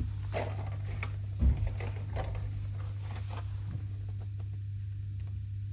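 Steady low hum under light handling noise: scattered small clicks and rustles, with one louder thump about one and a half seconds in, then quieter.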